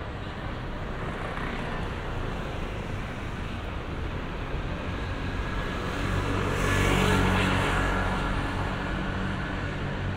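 A motor vehicle passes close by, its engine and tyre noise swelling to a peak about seven seconds in and then easing off, over steady city street ambience.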